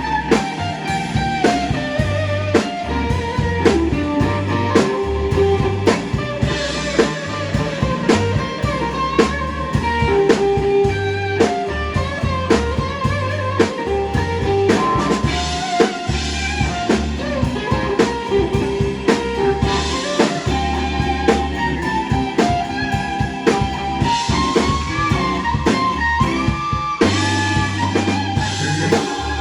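A live blues band playing: an electric guitar lead line with sustained, bending notes over a steady drum kit and bass.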